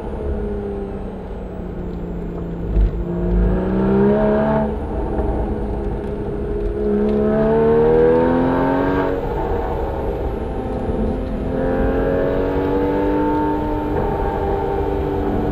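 Porsche 981 Cayman S's flat-six engine through a Soul Performance exhaust, pulling under acceleration. Its pitch climbs, drops sharply twice, about five and nine seconds in, as the revs fall, then holds fairly steady and slowly rises again. There is a short low thump about three seconds in.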